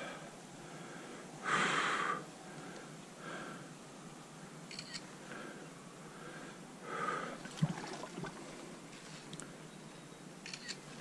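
A person breathing hard close to the microphone, with several loud breaths and sniffs over a steady rush of creek water. The loudest breath comes about one and a half seconds in, and there is a sharp knock about two-thirds of the way through.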